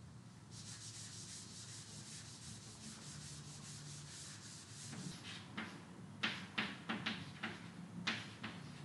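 A blackboard duster rubbing across a chalkboard in a steady scrub. About five seconds in it gives way to chalk writing on the board in short, sharp strokes.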